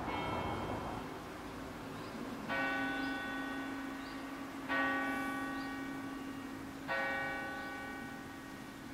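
Church bell tolling slowly: four strikes about two seconds apart, each ringing on and fading, with the bell's low hum lingering between strikes.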